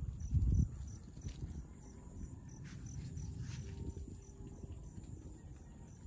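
Insects chirring steadily in a faint, evenly pulsing trill over a low rumble, with a brief low thump about half a second in.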